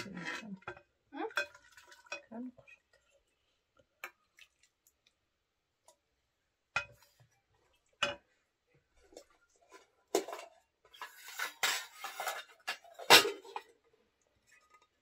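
Metal dishes and cutlery clinking and knocking in scattered single strikes, then a busier run of clatter between about ten and thirteen seconds in.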